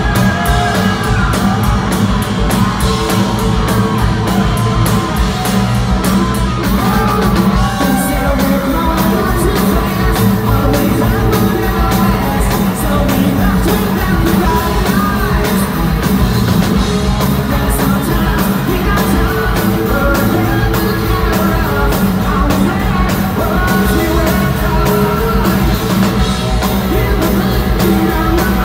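Live hard rock band playing loud, with a male lead singer over electric guitar, bass and drum kit, heard from the audience.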